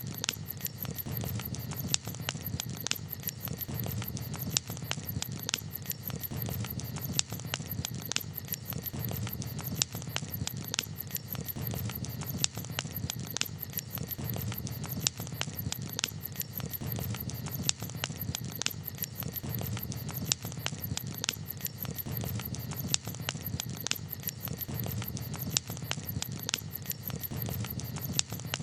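Wood campfire crackling: sharp, irregular pops and snaps several times a second over a steady low rumble.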